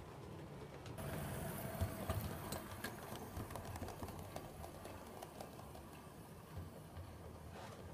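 7mm-scale model steam locomotive running past on the layout: a steady electric motor whir and gear hum with wheels clicking over the track, growing louder about a second in as it comes close.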